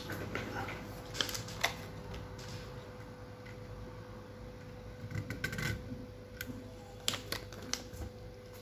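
Scattered small clicks and taps of fingers handling a laptop keyboard's flat ribbon cable and its plastic motherboard connector while the cable is reconnected, over a faint steady hum.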